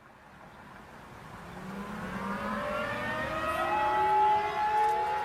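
Several civil defense sirens winding up together. They fade in from silence and grow louder, their pitches gliding upward, and one levels off into a steady high tone a little past halfway.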